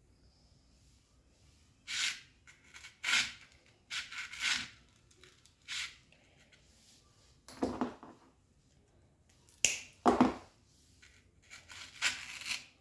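Hands handling bouquet-making materials: about nine short, irregular rustling and crinkling sounds, two of them heavier, like a knock or a set-down, between the lighter ones.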